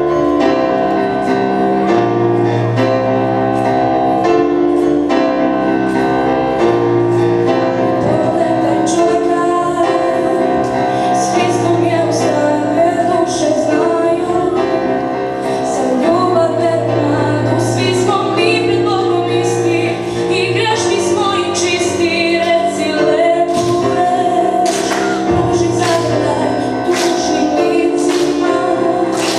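A song sung by a solo female voice into a microphone over instrumental accompaniment, with sharp percussive hits growing more frequent in the second half.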